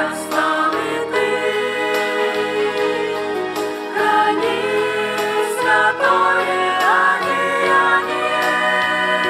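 Mixed choir of men's and women's voices singing a hymn together in sustained notes.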